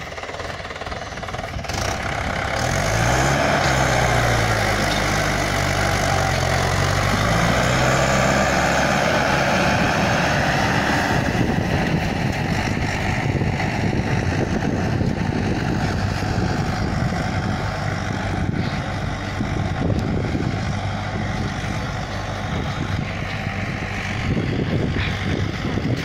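Swaraj 843 XM tractor's three-cylinder diesel engine running hard under load as it hauls a sand-laden trolley up out of a pit. About two seconds in the engine gets louder and its pitch rises and falls for several seconds, then it settles into a steady heavy run.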